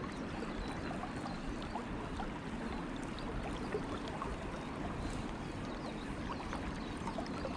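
Flowing river water: a steady rush with many small, quick splashing ticks over it.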